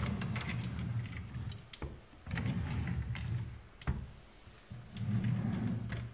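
Desk drawers sliding on their runners three times, each slide a low rumble, with a sharp knock as a drawer hits its stop about two seconds in and again about four seconds in.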